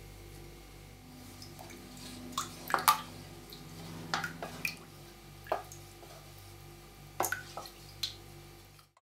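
Wooden spoon stirring agar powder into water in a stainless steel pot: watery splashing and a series of sharp knocks and clicks as the spoon strikes the pot, the loudest about three seconds in.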